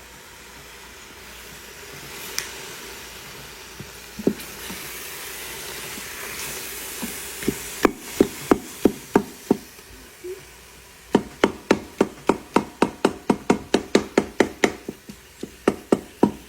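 A steady hiss for the first several seconds, then sharp wooden knocks: a few scattered strikes, then a fast, even run of about three a second through the last five seconds.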